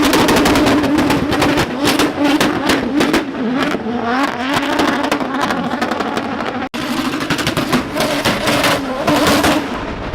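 Toyota GT86 drift car's 2JZ turbocharged inline-six revving hard and rising and falling in pitch as it drifts, with many sharp cracks and pops from the exhaust. The sound cuts out for an instant about two-thirds of the way in.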